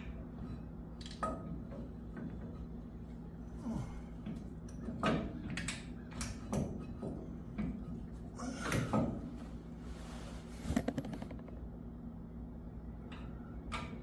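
Scattered knocks and clinks of metal brake parts being handled and fitted onto the truck's spindle during a disc brake conversion, over a steady low hum.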